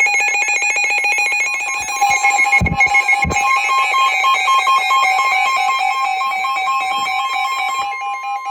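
Emergency Alert System attention signal for a severe thunderstorm warning: a loud, steady electronic alarm tone, with a second tone joining about two seconds in. Two low thumps come about three seconds in.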